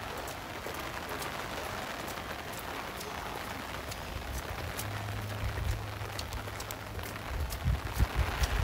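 Rain falling on wet paving and foliage: a steady hiss with many separate drop ticks. A low hum runs for a couple of seconds midway, and a few low bumps come near the end.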